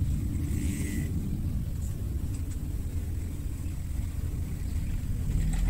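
Steady low rumble, with a pitched hum coming up near the end.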